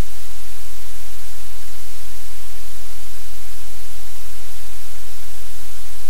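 Loud, steady static hiss across all pitches, with a low hum underneath: electrical noise on the livecam's audio feed.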